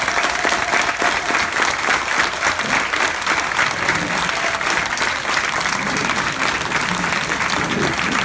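Large audience applauding: many hands clapping steadily and densely, without a break.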